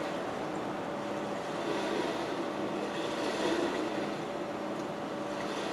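Steady background hum and hiss of room noise, with no clear eating or other distinct sounds.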